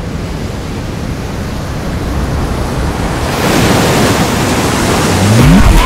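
Rushing, surf-like noise that swells louder and brighter about halfway through, with a short rising sweep near the end.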